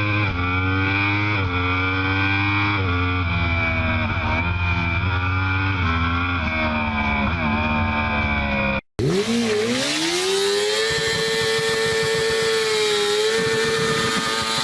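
Motorcycle engine under hard acceleration, its note climbing and dropping back several times as it shifts up through the gears. After a sudden cut, an engine is revved up and held at high revs for a few seconds, then falls away near the end.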